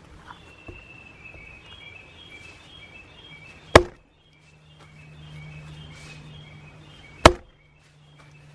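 Two sharp hatchet strikes splitting red pine logs, about three and a half seconds apart, while a Japanese green woodpecker sings a run of short repeated notes.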